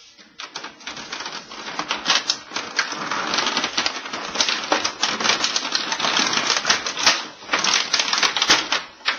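Plastic toy drill being worked out of a moulded styrofoam packaging tray: a dense, rapid run of clicks, creaks and scrapes of plastic rubbing against foam, building up after the first second.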